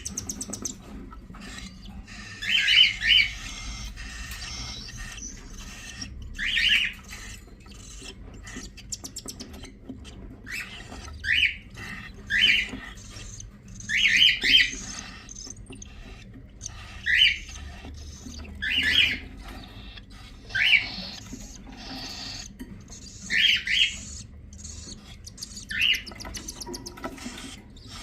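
Cockatiels in the nest giving short, raspy calls every second or two, some in quick pairs or triples.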